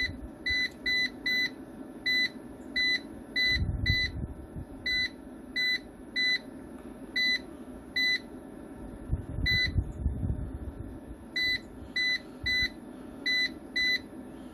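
Control panel of an EG 6500 EX solar inverter giving short high beeps, about eighteen of them at uneven intervals, as its buttons are pressed to step through the settings menu. A steady low hum runs underneath.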